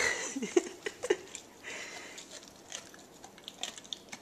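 Leonberger gnawing on a dog chew, giving scattered short clicks and crunches of teeth, with a short louder burst of noise right at the start.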